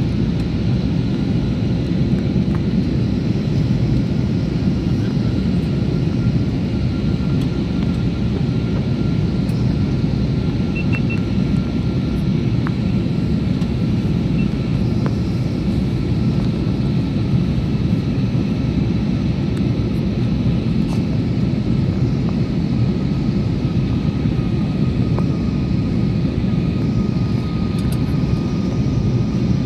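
Airliner cabin noise during the descent to landing: a steady low roar of the jet engines and rushing airflow, with a faint steady whine above it.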